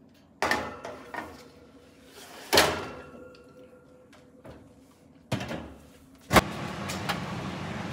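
Metal pizza pan clanking against the oven rack as it is slid in, one clank ringing on briefly. About six seconds in, the oven door is swung shut with a loud bang, and a steady whooshing noise follows.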